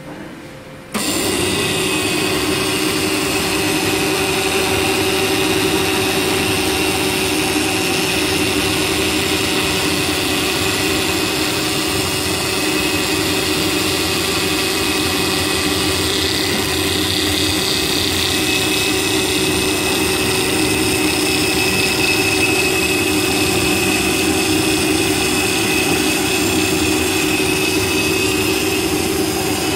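Roller brush trimming machine running steadily as its cutter trims the plastic bristles of a spinning roller brush. The noise comes in abruptly about a second in and holds at an even level, with a steady hum and a high whine over the rush of the cutting.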